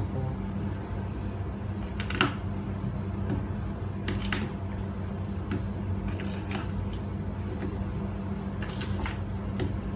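A few light clicks and knocks, the sharpest about two seconds in, as chicken wings are mixed by hand in their marinade, over a steady low electrical hum.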